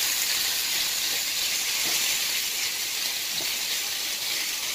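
Pieces of ribeye steak sizzling in a frying pan with butter and garlic: a steady hiss, with a few faint clicks as tongs turn the meat.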